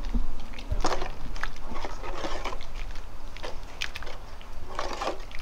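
Irregular knocks and scrapes of a spoon or ladle against a pot as pounded frog-curry paste is scooped into the broth and stirred.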